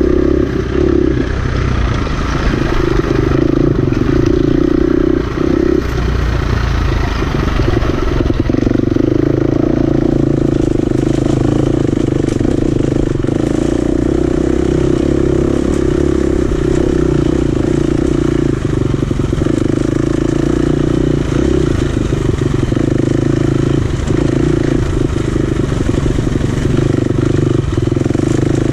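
Dirt bike engine running steadily under way at a near-constant pitch, with a few brief dips in the first eight seconds.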